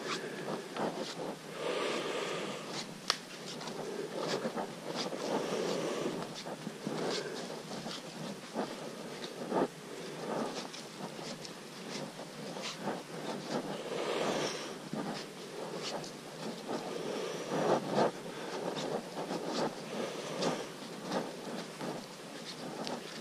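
Footsteps and rustling of people hiking along a muddy, leaf-covered forest trail: an uneven run of soft steps, scuffs and small knocks, with no steady beat.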